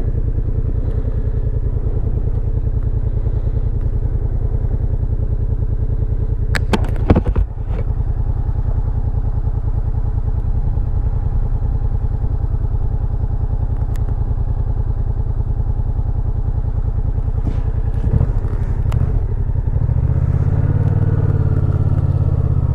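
Yamaha FZ-07's parallel-twin engine running steadily while the motorcycle is ridden, with a cluster of sharp clatters or knocks about seven seconds in and a few single knocks later. The engine note grows fuller near the end.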